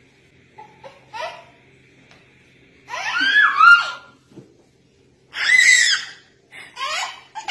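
A young child laughing and squealing in loud bursts, the two biggest about three seconds in and just before six seconds, with shorter high squeals in between and near the end.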